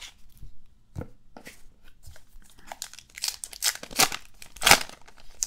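Paper pack wrapper of a trading card pack being torn open and crinkled by hand. Small rustles and clicks of cards being handled come first; the loudest tearing comes about three to five seconds in.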